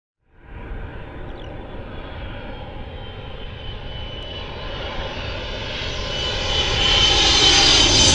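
Jet fighter's engine roar growing steadily louder as it takes off and comes closer, with a thin high whine that rises slightly in pitch.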